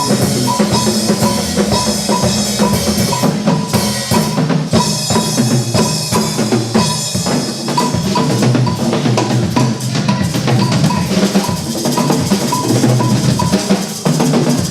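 Instrumental music track driven by a drum kit, with bass drum and snare hits under a short high note that repeats about three times a second.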